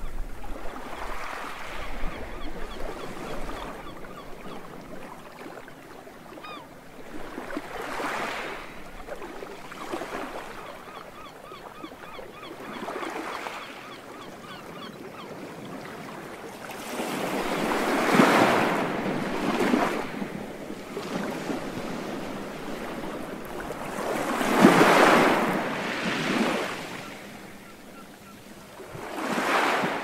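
Sea waves breaking and washing up a sandy beach, swelling and fading in repeated surges every few seconds, with the loudest surges about two-thirds of the way through. Faint cries of seagulls sound in the first several seconds.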